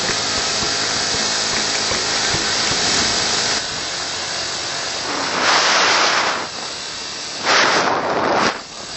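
Steady rush of wind noise on the microphone of a moving small motorcycle, with the engine running faintly underneath. Two louder surges of wind noise come about five and a half and seven and a half seconds in, then it drops as the bike slows.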